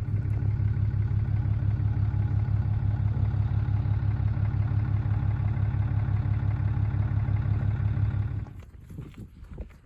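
A vehicle engine running steadily with an even, rapid throb, stopping suddenly about eight and a half seconds in; faint scattered clatter follows.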